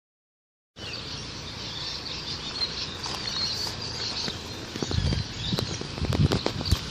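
Birds chirping in the background at dawn, with footsteps on a brick footpath and phone-handling knocks starting about five seconds in.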